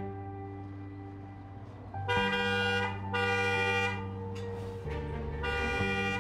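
SUV car horn honking three times, starting about two seconds in: two blasts close together, then a third near the end, each under a second long. The honks are a summons for someone to come out of the house. Steady background music plays underneath.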